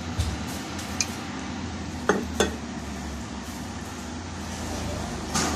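A glass tumbler clinking sharply against the rim of a glass bowl a few times as water is poured into flour, with a steady low hum underneath.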